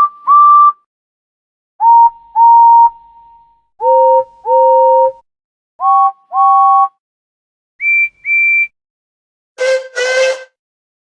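A run of six steam locomotive whistles, each blown as a short toot followed by a longer one, each pair at a different pitch. These are the whistles of different engines from Thomas the Tank Engine; the last pair is breathier, with steam hiss.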